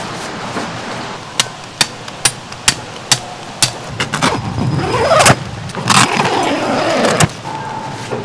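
Tent being handled: a row of sharp clicks, about two a second, then a tent zipper drawn twice, the second pull longer.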